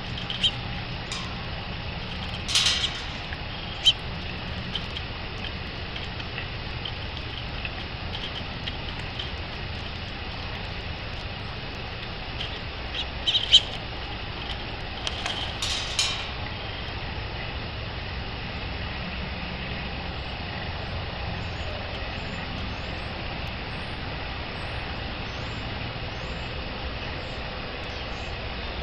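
Songbirds at a backyard feeder giving short chirps and calls, with a few sharp clicks and taps, over a steady background hiss and low rumble.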